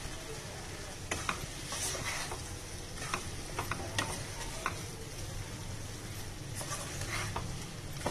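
Wooden spatula stirring chicken pieces in a nonstick frying pan, with irregular scrapes and knocks against the pan over a low, steady sizzle.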